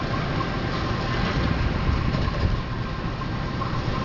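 Diesel engine of a CC 201 locomotive (a GE U18C) idling steadily.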